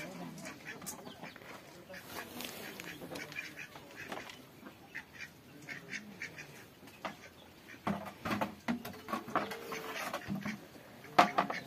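Farmyard animal calls, most like ducks or other domestic fowl, among scattered clicks and knocks, with a person's voice now and then.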